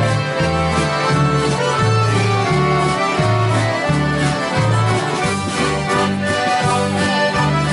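A large ensemble of accordions playing a tune together in unison, with guitars strumming along and a bass line stepping underneath.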